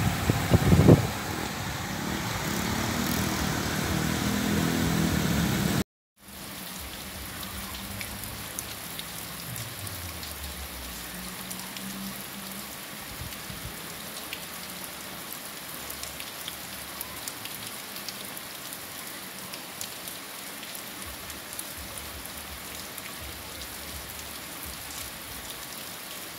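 Rain falling steadily on a street, heavier and louder for the first six seconds over flowing runoff. After a brief break it becomes a softer, even patter with scattered drop ticks. Between about 8 and 13 seconds in, a vehicle's low engine hum passes, falling in pitch.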